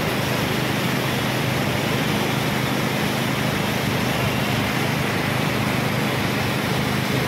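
Steady rushing roar of fast-flowing water, even and unbroken, with a low hum underneath.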